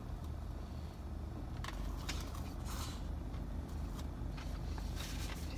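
Low, steady hum of an idling car engine heard inside the cabin, with a few faint clicks from chewing and handling a sandwich.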